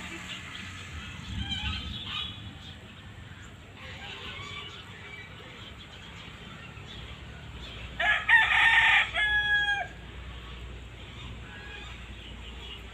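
Rooster crowing once, loud, about eight seconds in, the call ending in a long drawn-out note. Softer chicken calls come earlier, around the first two seconds and again near four seconds.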